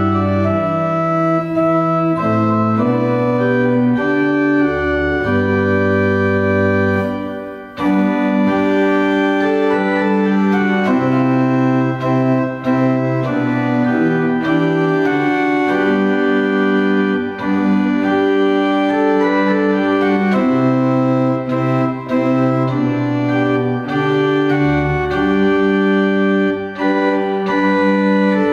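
Pipe organ playing a hymn tune in sustained chords over a moving bass line, with a short break between phrases about seven and a half seconds in.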